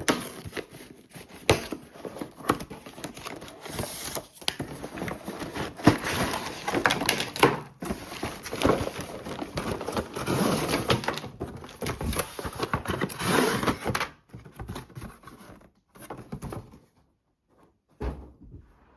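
A cardboard toy box being opened by hand: the box and its packaging rustle and scrape, with many sharp clicks and taps. After about fourteen seconds it grows quiet, with a single dull knock near the end.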